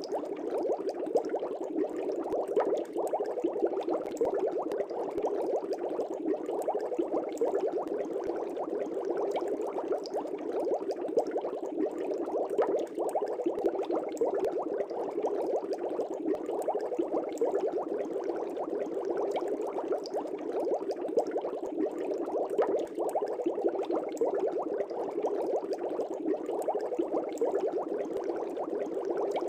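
Air bubbles streaming up through an aquarium's water, a steady dense bubbling made of many small gurgles and pops.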